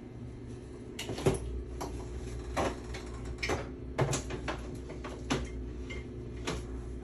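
Kitchen doors and containers being handled: a scattered string of light knocks and clicks, about ten in all, over a low steady hum.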